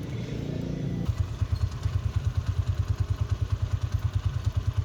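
Small motorcycle engine idling nearby with a steady, rapid low chugging, settling into its even beat about a second in.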